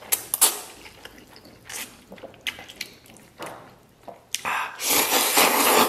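A person slurping oil-splashed noodles off chopsticks and chewing, in several short slurps and then one long, loud slurp near the end.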